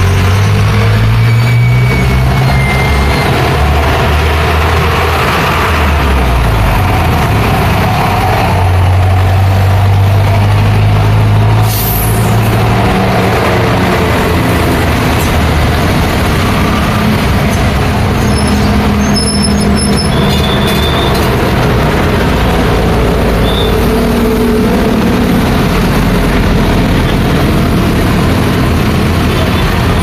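Busy road traffic: a truck's diesel engine running close by, with a steady low drone for about the first twelve seconds, then a short high hiss. After that, lighter traffic with motorcycles and cars passing.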